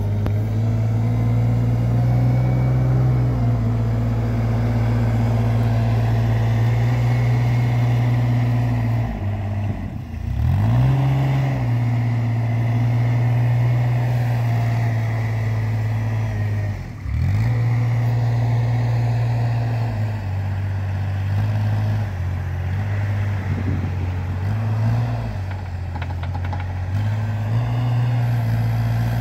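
Diesel engine of a Giant compact articulated wheel loader running at a steady speed. The speed drops briefly and climbs back up twice, about ten and seventeen seconds in, with smaller shifts later on.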